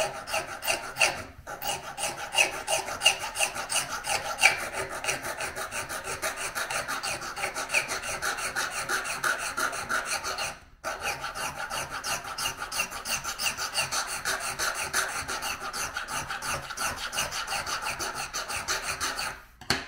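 Small needle file rasping in quick back-and-forth strokes along the base of an HOn3 model railroad rail held in a wooden jig, filing the rail base down. The strokes break off briefly about a second in and again about halfway through.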